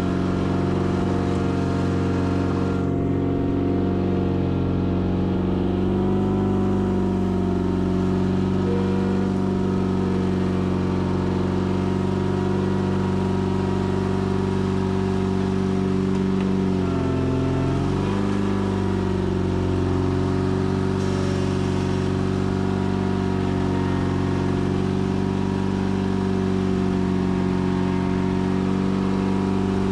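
Sears Craftsman FF24 garden tractor engine running steadily under load while pulling a plow through dirt. Its pitch dips briefly and recovers about 17 seconds in.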